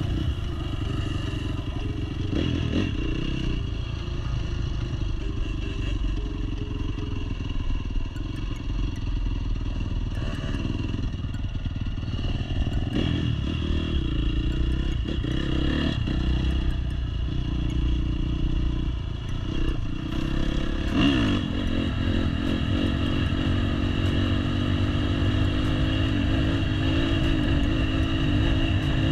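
Dirt bike engine running as the bike is ridden, the revs rising and falling, then climbing steadily over the last several seconds.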